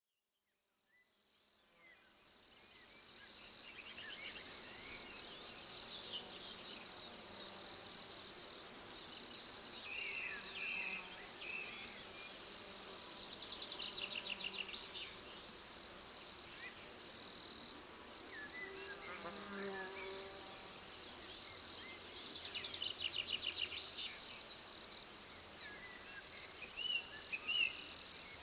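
Summer pasture insect chorus: crickets stridulating in a steady high trill, with louder bouts of fast, pulsing buzzy chirping that come and go three times. A few faint bird chirps sound in the background, and the sound fades in over the first two seconds or so.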